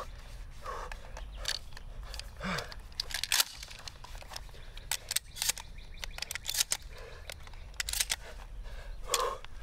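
Shells being loaded into a pump-action shotgun's tube magazine: a series of sharp metallic clicks and snaps as the shells are pushed past the loading gate.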